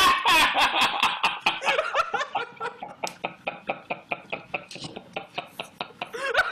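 Hearty laughter: a long run of quick bursts, about five a second, that gradually fade.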